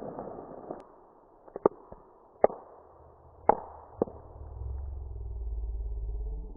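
Bubble wrap being twisted, with four sharp pops as single bubbles burst, over a low crinkling rustle. The sound is slowed down, so it comes out deep and dull. A low steady hum builds over the last two seconds.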